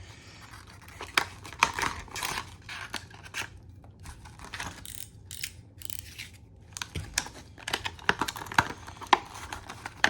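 A knife cutting and tearing open a padlock's packaging, with scraping, crinkling and sharp handling clicks scattered irregularly throughout.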